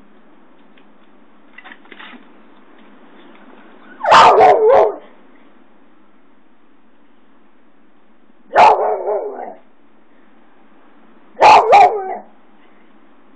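A beagle barking up into a tree in three short bouts of several barks each, about four seconds apart.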